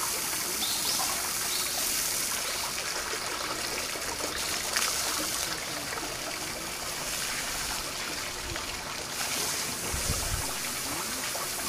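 Steady trickle of running water, an even hiss with no break, with one brief click about five seconds in.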